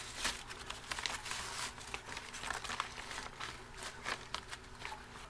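Plastic vacuum-sealer bag crinkling in short, irregular rustles as hands handle it and settle a shad inside.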